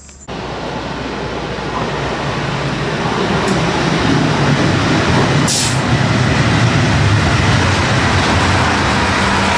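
Narrow-gauge diesel train running, its engine growing louder over the first few seconds and then holding steady, with a brief hiss about five and a half seconds in.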